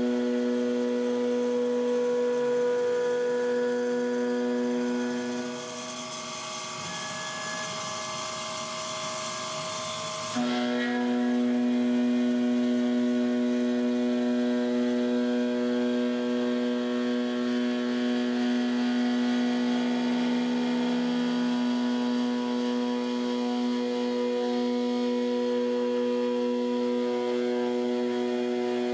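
CNC milling machine's carbide end mill cutting 6061 aluminium at 8000 RPM, a steady pitched cutting tone with a stack of overtones. About five seconds in, the tone drops away for roughly five seconds, leaving a quieter hiss, then cuts back in suddenly at full strength.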